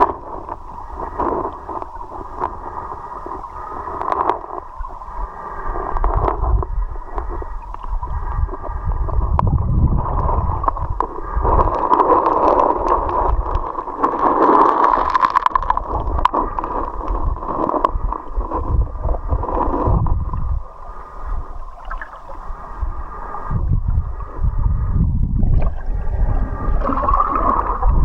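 Muffled underwater sound of river water gurgling and rushing, with low rumbling swells throughout.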